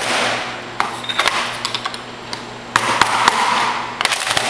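Hammer tapping the lip-type shaft seal out of a Denso 10PA A/C compressor's nose housing from behind: scattered sharp metallic taps and clinks, with a quick cluster of them near the end.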